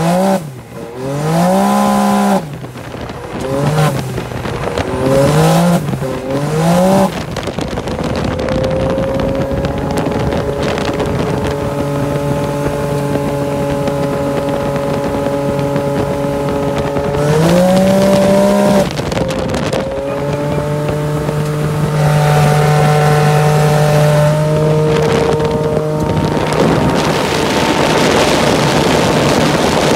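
Straight-piped Can-Am Maverick X3's turbocharged three-cylinder engine, run with its MBRP silencer removed, very loud. It is revved up and down five or six times, then held at high revs at wide-open throttle for long stretches, with one brief surge higher midway. Wind noise rises over it near the end.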